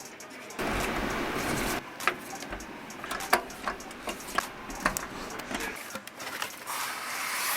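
Desktop computer parts being handled and fitted by hand: a run of sharp clicks and taps of small plastic and metal pieces. A stretch of steady noise comes about half a second in and lasts about a second, and another swells near the end.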